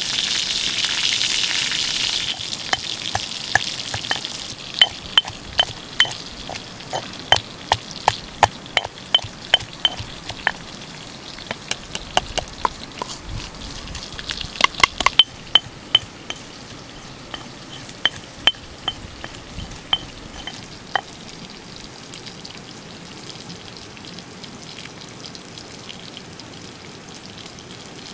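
A centipede sizzling on a hot stone slab over a wood fire, then a stone pestle knocking against a stone mortar in sharp, irregular, ringing strikes, about one or two a second, which stop about 21 seconds in.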